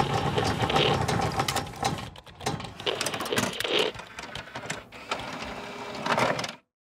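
Sound effects for an animated logo intro: rapid mechanical clicking and ticking with a few swelling whooshes, cutting off suddenly near the end.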